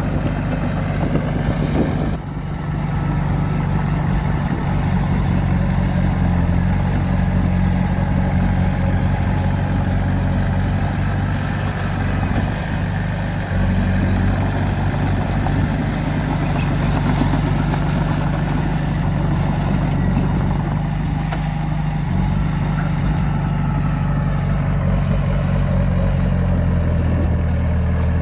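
Diesel engine of earthmoving equipment running steadily, with a brief drop in level about two seconds in and again about halfway through.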